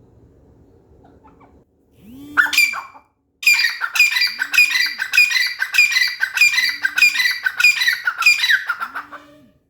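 Grey francolin (teetar) calling: one short call about two seconds in, then a loud, fast run of repeated ringing phrases, about two a second, lasting some six seconds before stopping near the end.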